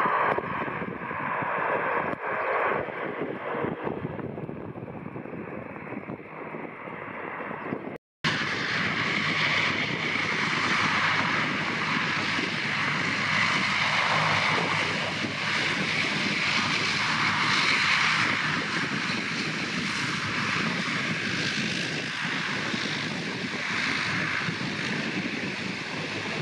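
Twin turboprop engines of a Bombardier Dash 8 Q300 running as it taxis past, a steady propeller drone with turbine whine. The sound drops out for an instant about eight seconds in, then returns fuller and brighter.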